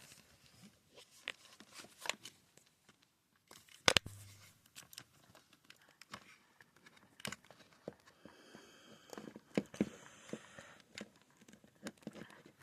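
Handling noise from plugging in a charging cable: scattered clicks, taps and rustling, with one sharp click about four seconds in.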